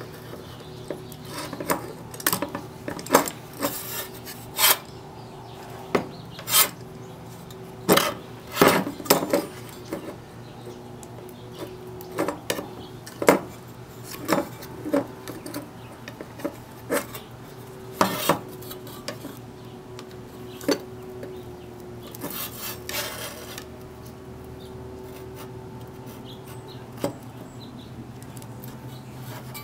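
Hand tools clicking, tapping and clinking against metal and a work surface while a cord splice is opened up. The clicks are irregular and come thickest in the first two-thirds. A short scraping comes about 22 seconds in, and a steady low hum runs underneath.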